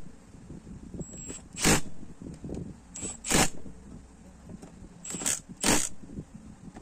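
Hand ratchet zipping in short strokes, four or five times, as it turns a bolt in the base of a Ford Ranger T7 common-rail high-pressure fuel pump while its third plunger is bolted in.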